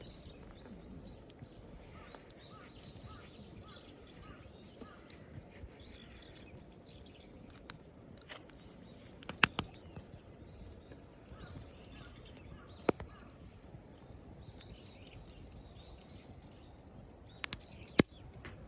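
Wood campfire burning with a low steady hiss, broken by sharp pops of cracking firewood: two close together about halfway through, one a few seconds later, and a quick cluster of three near the end.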